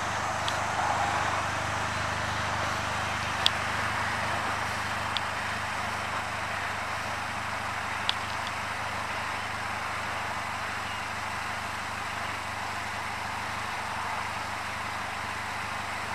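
Polaris Slingshot SL's 2.4-litre four-cylinder engine idling steadily, with a few sharp clicks.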